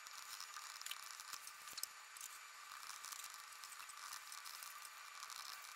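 Faint steady hiss of room noise with light, scattered taps and ticks.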